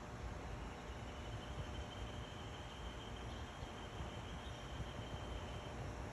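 Low, steady outdoor background noise with a rumble underneath. A faint, thin high whine holds one pitch from just after the start until near the end.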